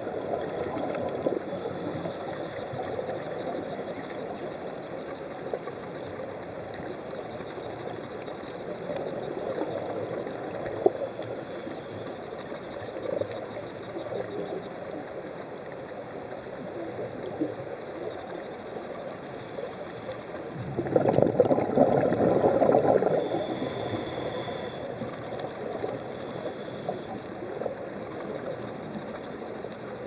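Muffled underwater noise picked up through a dive camera's housing, steady throughout, with a louder rush lasting about two seconds about two-thirds of the way in, typical of a scuba diver's exhaled bubbles.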